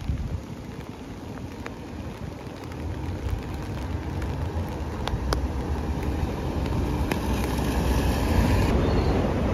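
Rain on a clear plastic umbrella: scattered drops tap sharply on the canopy over a steady wash of rain and a low rumble, growing louder toward the end.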